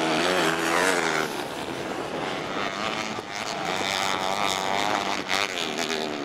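Engines of small race cars running at speed, their pitch repeatedly rising and falling as they accelerate and back off, with a climb and drop about a second in and more sweeps later on.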